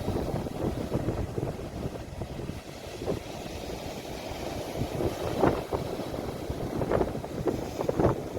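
Sea waves recorded on a phone, a steady low rumble of surf and wind buffeting the microphone, with a few brief splashing surges in the second half.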